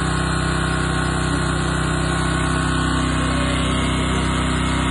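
An engine running steadily at a constant speed, an even drone that holds one pitch throughout.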